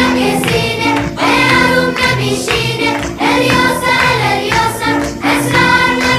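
Background music: a song with singing voices over a steady accompaniment.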